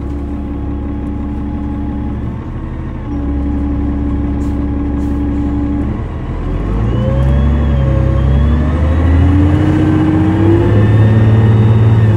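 A 2005 New Flyer D40LF bus with a Cummins ISL 8.9 L turbocharged inline-six diesel runs steadily at low speed. From about six seconds in it accelerates: the engine note and a whine rise in pitch and grow louder.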